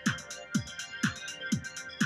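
Electronic background music with a steady kick-drum beat, about two beats a second, and quick hi-hat ticks over it.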